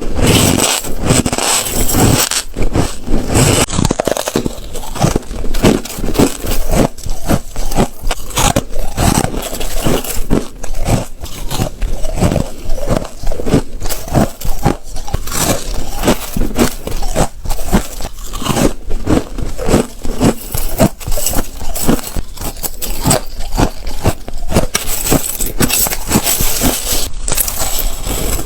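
Ice being bitten and crunched between the teeth, close to the microphone: a fast run of loud, sharp crunches and cracks one after another.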